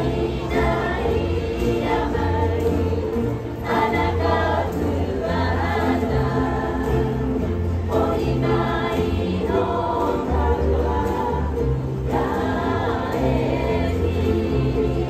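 A large ukulele ensemble strumming and singing a Hawaiian song together in chorus, over a steady low bass line.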